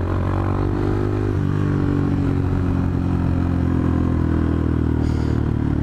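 Motorcycle engine running while being ridden, its note dipping slightly in the first second as the throttle eases, then holding steady at cruising speed.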